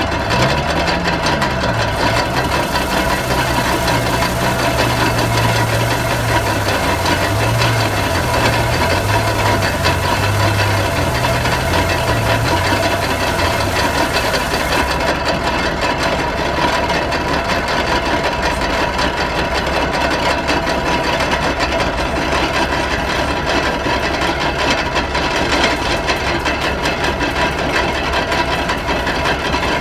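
Vintage stationary engine running steadily and belt-driving a small wooden threshing machine, with the drum working as sheaves are fed into it by hand.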